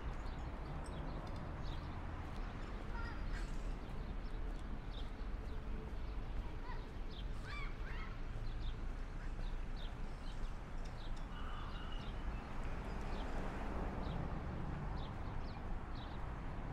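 Street ambience: a steady low rumble of road traffic, with scattered short bird chirps from the trees above.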